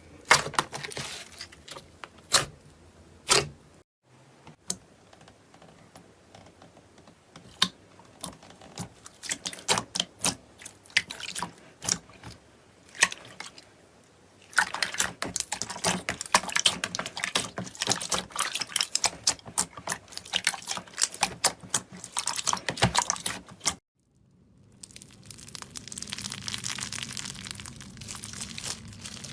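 Slime being pressed, poked and stretched by hand, making a run of sticky clicks and pops. From about halfway through, the clicks thicken into dense crackling, and near the end a steadier crinkly squishing follows a sudden cut.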